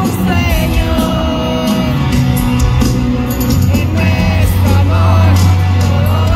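Live pop-rock band playing, with lead vocals over drums, bass and electric guitars, heard through an arena sound system from among the audience.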